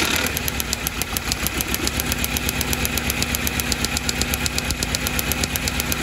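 2008 Chevrolet Cobalt's 2.2-litre Ecotec four-cylinder cranking over on the starter. Over it comes a rapid, even train of sharp snaps, about ten a second, from an adjustable spark tester on the cylinder-two ignition coil, set to about 30 kV. The coil is arcing strongly, so it is getting good power, ground and control.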